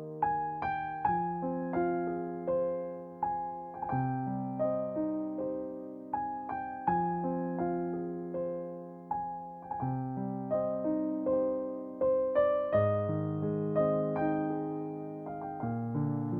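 Background music: a piano or electric piano playing a slow, gentle melody over held chords, notes struck and left to fade.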